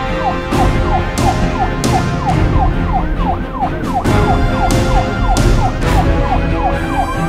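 Police siren in a fast yelp, its pitch falling over and over about three times a second, over background music with a steady drum beat.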